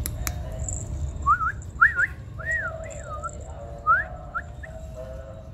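Someone whistling a loose run of about seven clear notes that slide upward or arch up and down.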